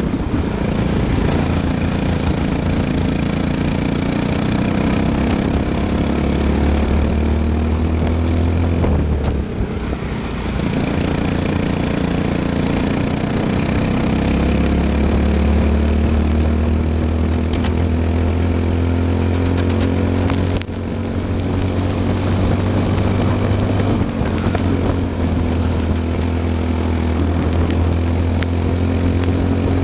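Briggs & Stratton LO206 four-stroke kart engine heard onboard at racing speed, its pitch climbing steadily as it accelerates, dropping back as the driver lifts about nine seconds in, then climbing again, with another short lift about twenty seconds in.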